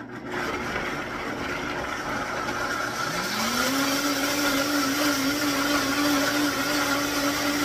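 High-powered countertop blender running, puréeing ingredients with water. About three seconds in the motor speeds up with a rising whine, then holds a steady high speed.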